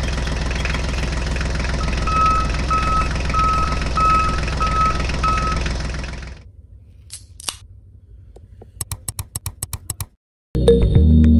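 Battery toy tractor's electronic engine sound, steady, with about six short high beeps half a second apart. It stops about six seconds in, leaving a few light clicks and taps, and background music starts near the end.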